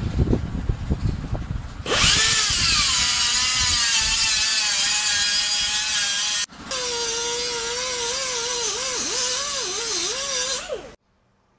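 Electric angle grinder cutting steel in two long runs, with a short break about six and a half seconds in; the motor's pitch sinks and wavers as the disc bites into the metal. It starts about two seconds in after a few low handling knocks, and stops abruptly near the end.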